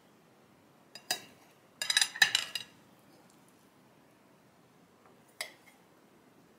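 Metal serving spoon clinking and scraping against dishes as rice is served onto a plate: one short clink about a second in, a loudest cluster of clinks around two seconds in, and a single clink near the end.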